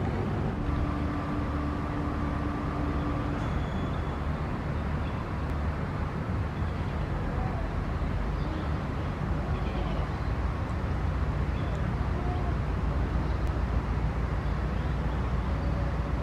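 Outdoor background: a steady low rumble throughout, with a steady hum lasting about three seconds near the start and a few faint, short high chirps.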